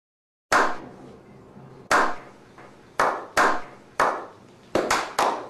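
A slow clap: single hand claps, each sharp with a ringing tail, starting about half a second in and spaced more than a second apart, then coming faster as more people join in near the end.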